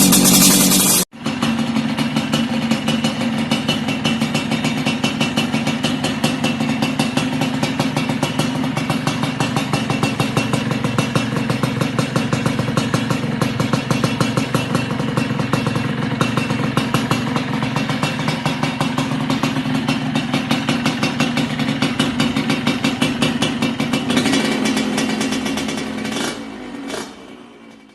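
Yamaha RX-King two-stroke single-cylinder engine running through an aftermarket underbelly exhaust, with a steady, fast pulsing idle. It is louder and higher for the first second before a sudden cut, rises slightly later on, and fades away near the end.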